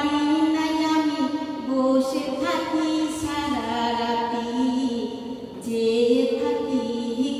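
A woman singing a slow Bengali folk song on her own. The single voice holds long notes that step up and down in pitch, with no instruments heard.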